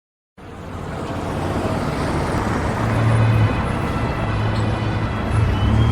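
City street traffic: car, bus and truck engines running with a steady low rumble and tyre noise, fading in after a moment of silence and growing louder.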